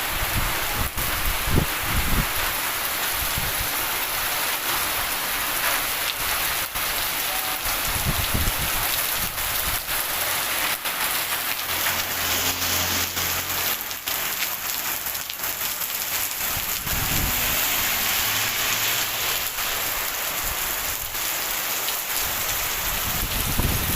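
Heavy rain pouring down and pattering on surfaces, a steady dense hiss with many small drop ticks, and a few brief low rumbles.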